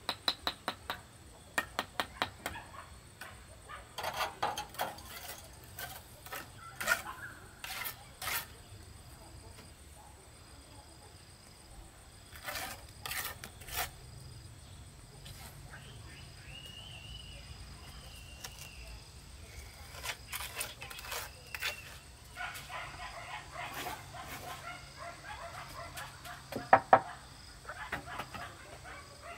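Hand work on a cement-brick wall: scattered sharp taps and knocks, in a quick run at the start and a loud double knock near the end.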